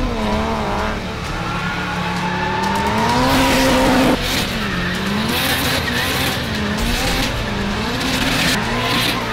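Subaru WRX STI, built to about 1000 hp, with its turbocharged flat-four engine held at high revs during burnout donuts while the tyres squeal on the tarmac. The revs climb for a few seconds, drop sharply about four seconds in, then rise and fall about once a second.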